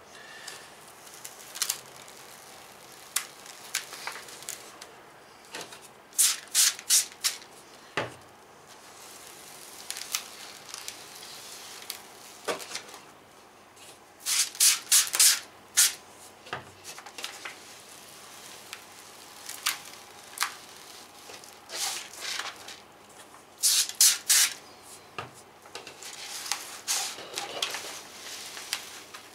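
Trigger spray bottle misting soapy water onto the back of a vinyl decal in quick runs of three to five squirts, repeated several times. In between, a soft rubbing as the paper backing is peeled off.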